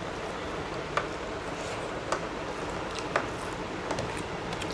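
Close-miked eating sounds of people eating rice by hand: soft chewing and mouth clicks, a few sharp smacks about a second apart, over a steady low hiss.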